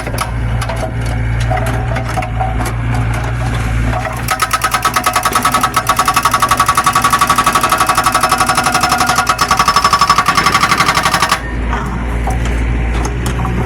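Excavator engine running, then a hydraulic breaker hammering in a fast, even train of blows for about seven seconds before stopping, leaving the engine running again near the end.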